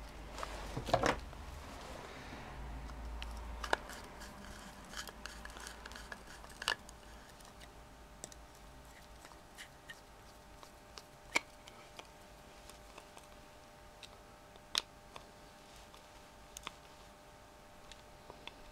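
Small metallic clicks and scrapes of a screwdriver turning the cover screws into the metal end cover of a BMW motorcycle ignition housing (the 'bean can'). A cluster of handling clicks comes about a second in, then single clicks every few seconds.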